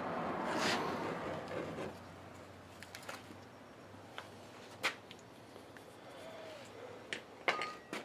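Handling noise from hands working a small PVC vacuum boot while it is heated to be melted and squeezed shut: a rustling rush for the first two seconds, then a few scattered clicks and light knocks.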